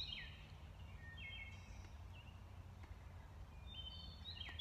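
Bird singing in woodland: quick runs of short, high chirping notes at the start and again near the end, with a brief phrase about a second in, over a faint low steady rumble.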